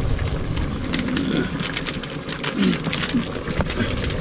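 Scattered light metallic clicks and clinks as spices are added to a cooking pot.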